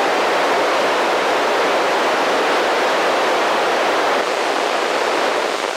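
Steady static hiss from a handheld FM radio's speaker tuned to the SO-50 amateur satellite downlink, with no voice on the channel: the squelch is open and no signal is coming through between transmissions.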